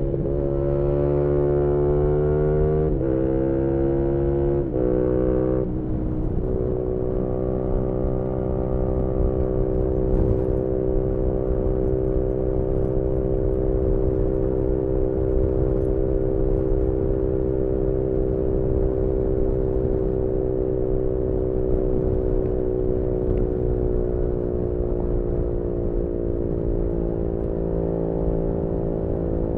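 2018 Yamaha MT-125 single-cylinder 125 cc engine with an aftermarket GPR exhaust, heard onboard under way: it pulls through a few quick gear changes in the first six seconds, then holds a steady engine speed at cruise, easing off slightly near the end, with wind rush underneath.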